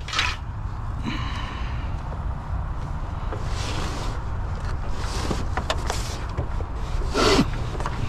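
Rustling and scraping of curbside junk being handled, over a steady low rumble, with a louder scrape about seven seconds in.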